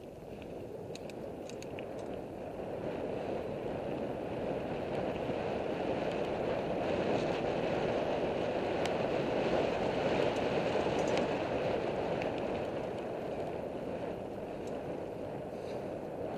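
Wind rushing over the microphone and knobby tyres rolling on dirt singletrack as a Commencal Meta AM mountain bike is ridden fast, with a few small clicks and rattles. The rush grows louder toward the middle and eases near the end.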